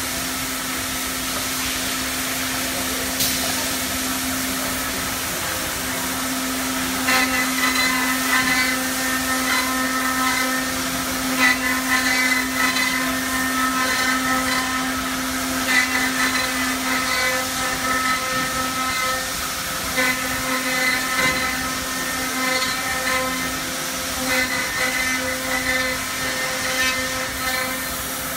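Woodmaster four-head CNC oval mortising machine running, its spindle motors giving a steady hum. From about seven seconds in, a higher whine comes and goes every few seconds as the router bits cut mortises into the wooden parts.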